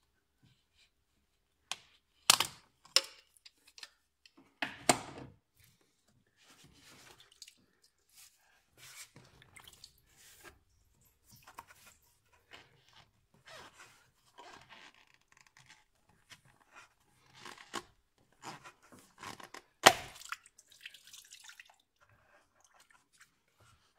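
Tools and parts being handled by hand during engine work: scattered sharp clicks and knocks, loudest about two seconds in and again near the end, with quieter scraping and rustling between them.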